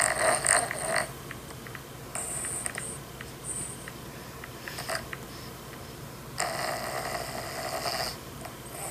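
Loud snoring in separate breath-long snores, with a long one about six seconds in.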